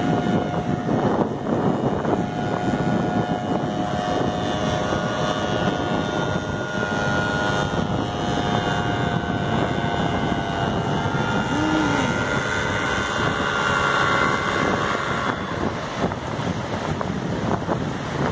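Powered paraglider's small propeller engine running steadily overhead, its note growing stronger through the middle and then falling away about 15 seconds in, over wind on the microphone and surf.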